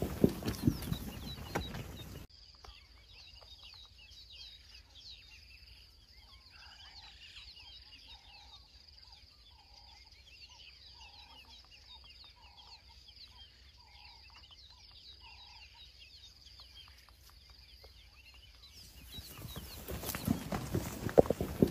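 Quiet bush ambience: a steady high-pitched insect drone, small bird chirps, and a fowl-like clucking call repeated about a dozen times at an even pace. Louder rustling and knocks fill the first two seconds and come back near the end.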